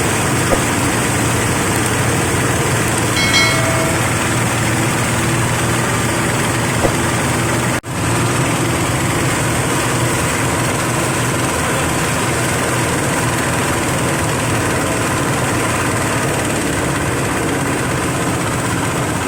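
Veneer waste grinding machine running steadily with a constant mechanical hum and a high whine. The sound drops out for a moment about eight seconds in.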